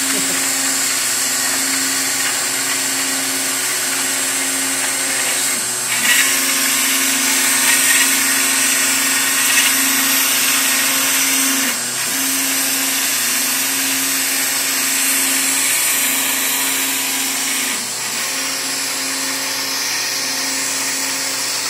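Phlatprinter CNC machine running, its spindle cutting a groove through foam insulation board. A steady high hiss with a hum under it; the hum breaks off briefly and resumes about every six seconds.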